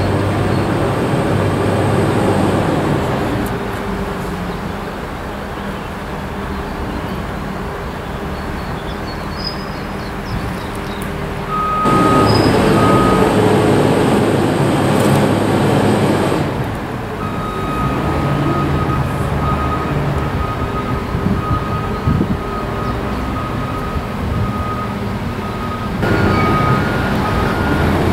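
TEM2 diesel-electric shunting locomotive's six-cylinder diesel engine running, throttling up about twelve seconds in, dropping back a few seconds later and picking up again near the end. A thin, steady high whine sounds over the engine in the middle stretch.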